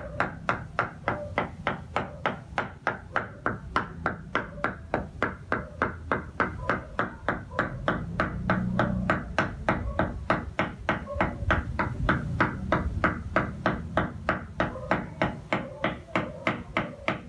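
Cleaver chopping raw meat on a round wooden chopping board: steady, evenly spaced knocks, about three to four strokes a second, as the meat is minced.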